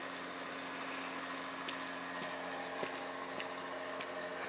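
Quiet, steady hum of room background noise, with a few faint clicks from plastic toy horses being handled.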